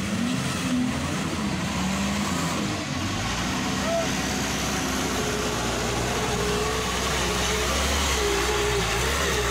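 Light dump truck's engine pulling the truck through deep mud, a low rumble that grows louder about three seconds in as the truck approaches and passes close by.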